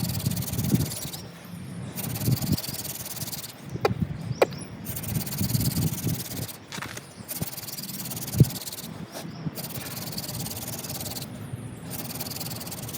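Wooden hand-drill spindle spun between the palms into a spalted white oak fireboard: a rough grinding hiss of wood on wood, broken by short pauses every couple of seconds as the hands go back up the spindle, with a few sharp knocks. The friction is grinding hot dust into the notch to build a coal.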